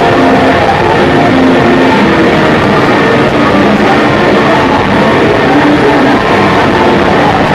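Loud, dense city-street noise: traffic with snatches of music over it.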